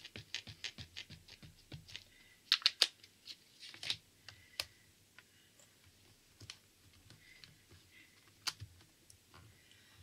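Ink pad tapped repeatedly onto a clear stamp mounted in a stamp positioning tool, re-inking it for a second stamping. First comes a run of quick light taps, about five a second, then a few louder clacks a couple of seconds in, then scattered softer taps.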